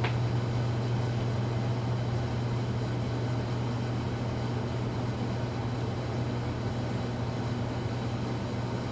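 Casablanca Delta ceiling fan running on low speed as it comes up to speed, a steady low motor hum over an even rushing noise.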